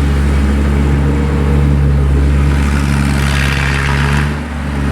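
Tracked rice combine harvester's diesel engine running steadily as it cuts through the paddy, with a rushing hiss joining in for about a second after three seconds.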